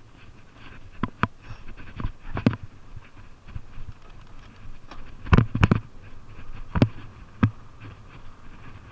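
Fuji Beartooth 27.5+ mountain bike rolling downhill over a rocky dirt trail. A steady rumble of tyre noise is broken by sharp knocks and clunks as the bike hits rocks, the loudest pair coming about five and a half seconds in.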